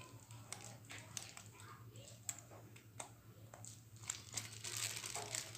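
Plastic packaging crinkling while being handled, with scattered small clicks and knocks, and a denser spell of crinkling about four and a half seconds in.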